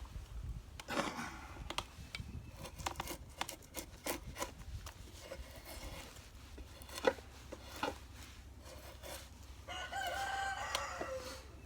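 Cedar bark being scraped and torn off a log in short strokes, with scattered sharp knocks. Near the end a rooster crows once, a call of about a second that drops in pitch as it ends.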